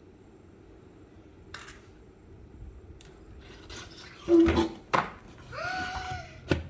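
Homemade fidget-toy vending machine being worked: a few light clicks, then a loud clatter about four seconds in as the fidget toys come out, followed by sharp knocks. A child's short, held voice sound comes between the knocks.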